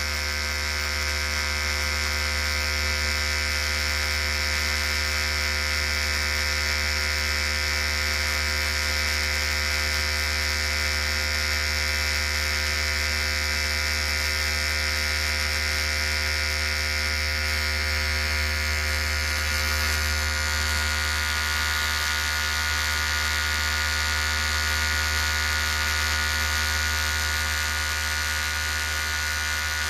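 Electric hair clippers running steadily with a constant buzzing hum, its tone shifting slightly about twenty seconds in.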